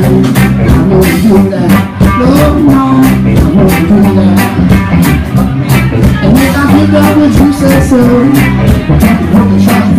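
Live rock band playing loudly: a singer over electric guitar, bass guitar and a drum kit keeping a steady beat.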